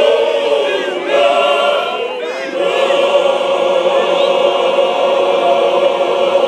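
Male choir singing in harmony, the voices moving at first and then settling into one long held chord from about two and a half seconds in.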